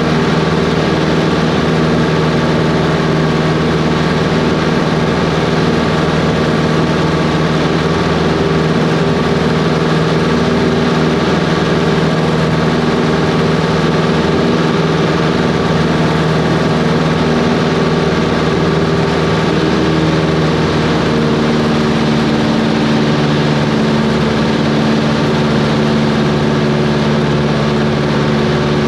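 Cessna 140's four-cylinder air-cooled Continental engine and propeller running steadily, heard from inside the small cabin. The engine note shifts slightly about two-thirds of the way through.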